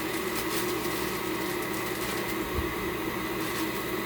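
Steady hum of a kitchen appliance or fan, with a few light clicks about half a second in and a soft thump about two and a half seconds in.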